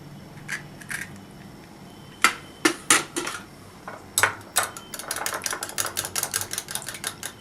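Kitchen utensil clicks against a bowl: a few sharp taps, typical of an egg being cracked on the rim. From about five seconds in comes quick, steady clicking of a fork or whisk beating the egg in the bowl.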